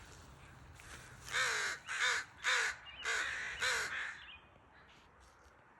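An animal calling five times in quick succession, short harsh calls a little over half a second apart, about a second in.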